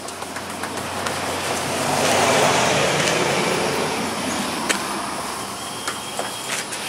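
A road vehicle passing by, its noise swelling to a peak a little over two seconds in and then fading away, with a few faint clicks.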